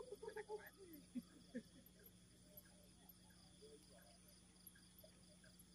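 Faint night ambience of insects chirping steadily in quick regular pulses, about four a second, with faint distant voices in the first couple of seconds and a low steady hum underneath.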